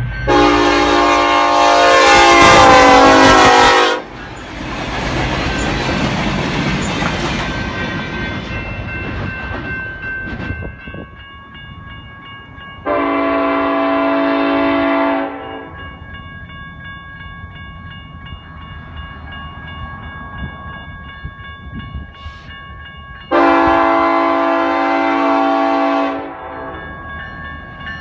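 BNSF SD70ACe diesel locomotive's air horn: one long, loud blast of about four seconds, then the rumble of the train rolling by on the rails. Two more horn blasts of about three seconds each follow, from the locomotive farther off.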